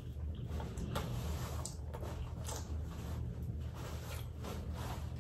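Paper towel rustling and crinkling in the hands as they are wiped, in soft irregular strokes over a steady low hum.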